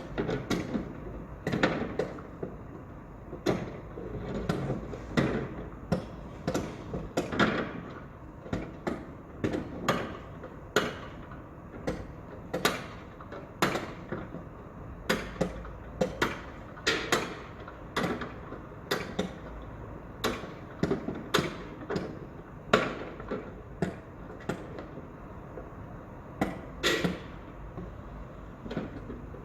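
Construction-site work sounds: irregular sharp knocks and clanks, about one or two a second, over a steady low rumble.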